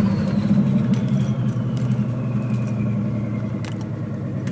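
350 Chevy small-block V8 of a turbocharged 1969 Chevrolet Impala running at a low, steady idle, heard from inside the cabin. A faint high whine slides down in pitch over the first three seconds, and there are a few light rattles and clicks.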